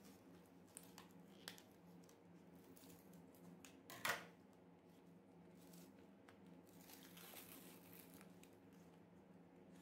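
Faint snips and clicks of scissors cutting a cardboard-and-plastic blister pack, then a single sharp clack about four seconds in, the loudest sound. Soft tearing and crinkling follows near the end as the card backing is pulled away from the plastic blister.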